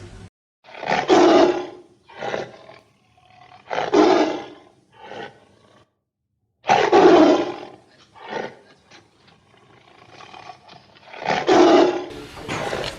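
A large animal roaring: four loud, rough roars a few seconds apart, with shorter, weaker grunting calls between them.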